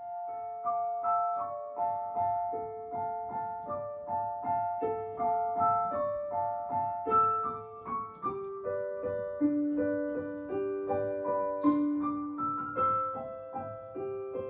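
Background piano music: a gentle tune of struck notes at an even pace, a melody over lower notes.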